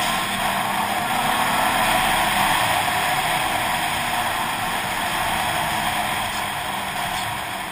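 Snowmobile running steadily at speed, its engine drone blended with a constant rush of wind noise on a helmet-mounted camera.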